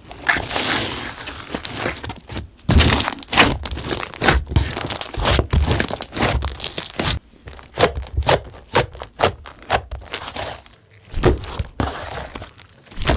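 Glossy slime being squeezed and poked by hand, making irregular wet clicks, pops and crackles with a few short pauses.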